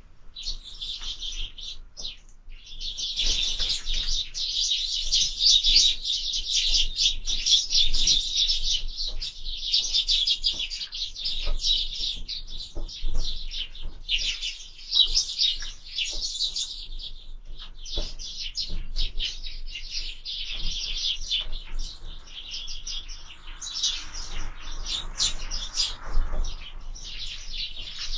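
A flock of sparrows chirping, many short calls overlapping in a dense, constant chatter; sparse at first, thickening after about three seconds.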